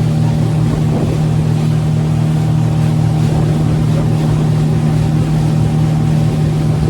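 Motorboat engine running steadily, holding an even pitch.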